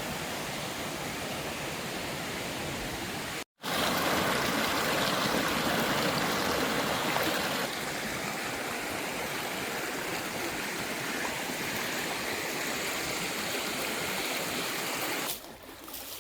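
Waterfall water rushing steadily, cut between shots: a brief gap about three and a half seconds in, louder for a few seconds after it, and quieter near the end.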